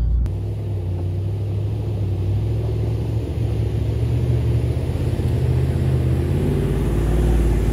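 Ram Power Wagon's 6.4-litre HEMI V8 running at low revs as the truck crawls over rocks, the revs rising a little near the end.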